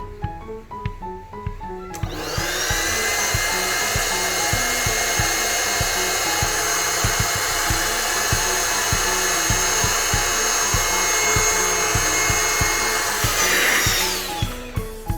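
Electric air pump for an inflatable car airbed switched on about two seconds in, whining up to speed and running steadily as it inflates the bed, then switched off near the end, its whine dropping away. Background music with a beat plays throughout.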